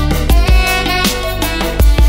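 Background music: sustained melodic notes over a heavy low beat that hits twice.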